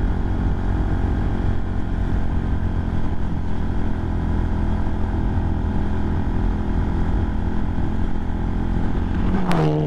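Motorcycle engine running steadily at cruising speed, mixed with wind and road noise on the camera.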